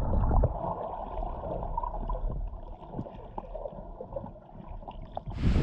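Muffled underwater sound of water moving and gurgling around a submerged action camera, dull with no highs, fading gradually with a few faint ticks. Just before the end, wind on the microphone cuts in suddenly.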